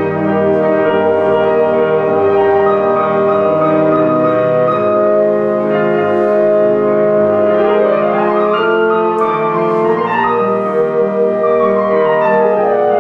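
Instrumental background music of held notes, with a rising run of notes about eight seconds in and a falling run near the end.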